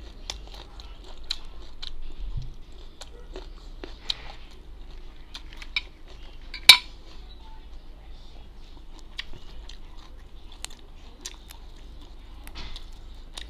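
A person eating by hand: chewing and mouth sounds with many small clicks and light taps of plate and food, and one sharp, much louder click about halfway through.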